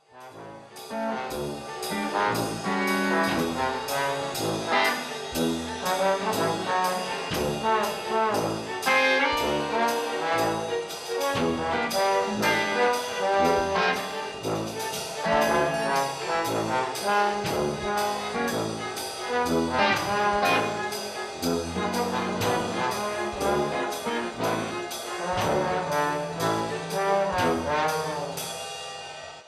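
Orchestra playing a busy, rhythmic score with brass to the fore over a steady pulse of percussion hits; it fades down near the end.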